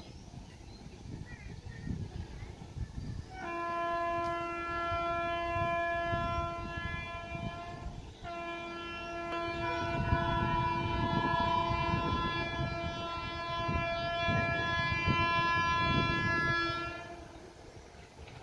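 WAP7 electric locomotive's horn sounding a long multi-tone blast that starts a few seconds in, breaks off for a moment about eight seconds in, then is held for about nine seconds more before stopping, over a low rumble.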